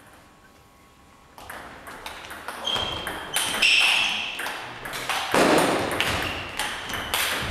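Table tennis rally: the ball clicks quickly back and forth off the bats and the table, getting louder, with short high squeaks of shoes on the hall floor. A louder noisy burst cuts in about two thirds of the way through.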